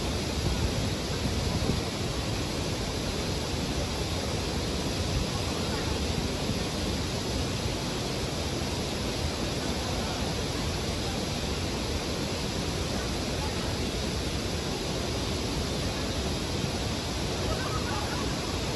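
Steady, even rush of water from an artificial waterfall pouring into a stream.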